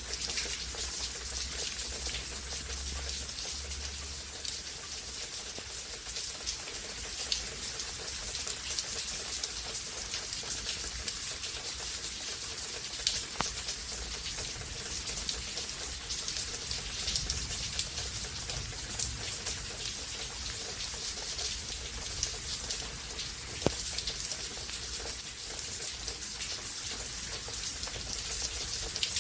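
Steady rainfall, an even hiss with many small drops ticking on surfaces.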